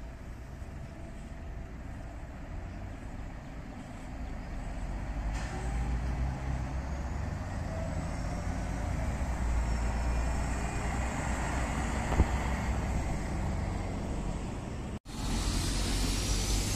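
A city bus passing close by: its engine and tyre noise builds over several seconds as it turns around a roundabout, with one short knock near the loudest part. Near the end the sound cuts off for an instant and a second bus is heard approaching with a rising high whine.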